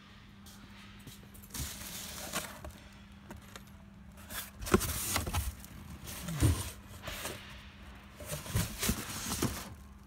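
Cardboard box flaps being pulled open and handled: irregular rustling, scraping and soft knocks, heavier in the second half, over a faint steady hum.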